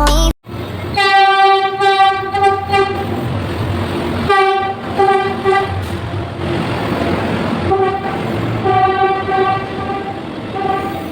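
A train sounds its horn in several long blasts, over the rumble of the train running.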